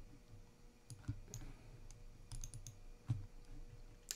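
Quiet computer mouse clicks at a desk: about a dozen short, sharp clicks, some single and some in quick pairs or clusters, as windows and files are opened.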